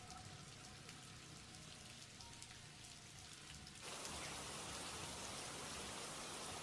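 Rain pattering on a motorcycle-mounted camera while riding, a steady hiss dotted with drop ticks over a low engine rumble. About four seconds in, the hiss suddenly gets louder.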